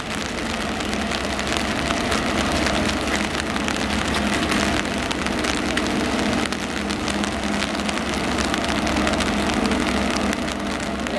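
Class 37 diesel locomotive's English Electric V12 engine running steadily at low power as it draws a test train slowly forward, a continuous drone with a hiss of rain over it.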